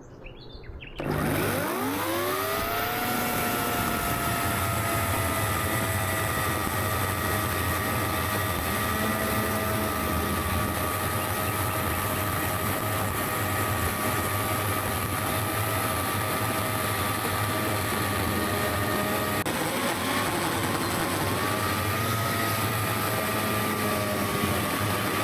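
AL-KO EKS 2000/35 electric chainsaw switched on about a second in, its motor whine rising quickly to full speed and then running steadily, sawing into a solid oak log. About 20 seconds in the pitch dips and partly recovers as the chain is loaded in the wood.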